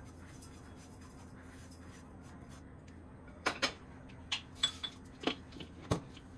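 Kitchen utensils being handled: after a few seconds of low steady background hum, about eight short clicks and taps come over the last two and a half seconds.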